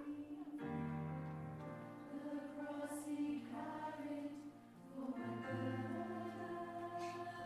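A choir singing a slow hymn in held chords that change every second or two, with a short break between phrases about two-thirds of the way through.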